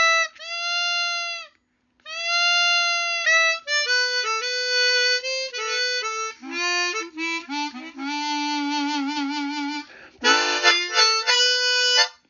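Easttop EAP-12 chromatic harmonica played in a bluesy phrase: long held notes, a short pause, then a run of notes stepping down to a wavering held low note, and a burst of chords near the end before a last held note.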